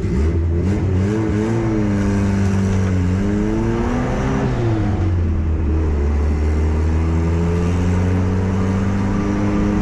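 Turbocharged Honda D16 four-cylinder engine, heard from inside the stripped-out Civic's cabin. Its revs rise and fall a few times as the car pulls away, then it settles into a steady run for the second half, on low boost.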